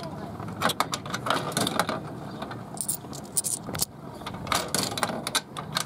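Coins clicking and rattling as they are handled and fed into a kiddie ride's coin slot, in quick irregular clicks and small knocks.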